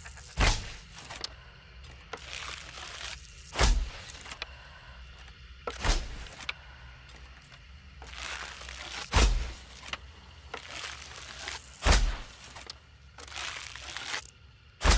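Hunting bow shots as a sound effect, repeated six times about every three seconds. Each is a short rising hiss followed by a sharp snap with a low thud.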